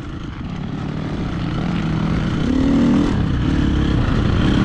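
KTM 350 SX-F motocross bike's single-cylinder four-stroke engine running hard on a dirt track, fading in and growing louder, its pitch rising and falling as the throttle opens and closes.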